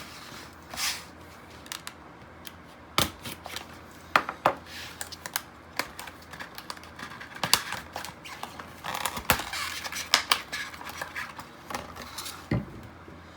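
A pocket knife slicing open the sides of product packaging: irregular scraping cuts, crinkling and sharp clicks of the package being handled.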